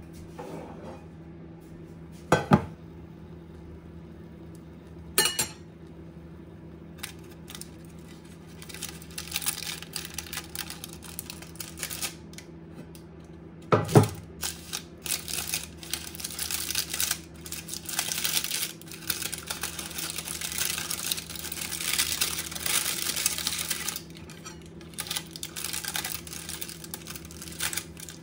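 Dishware and kitchen utensils being handled: three separate ringing clinks, then a long stretch of quick, busy clattering and scraping, over a steady low hum.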